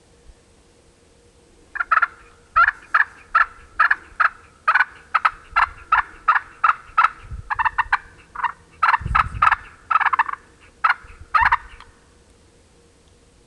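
Hand-held wooden turkey call worked to imitate a wild turkey. It gives a long run of short, sharp notes, about two or three a second, starting about two seconds in and stopping near the end.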